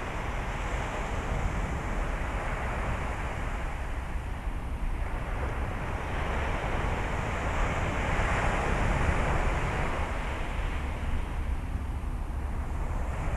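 Surf washing on a beach, a steady hiss of waves that swells about eight seconds in and eases off again, with wind rumbling on the microphone.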